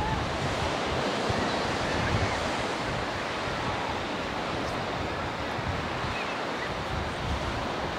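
Steady wash of sea surf and wind, with wind gusting unevenly across the microphone.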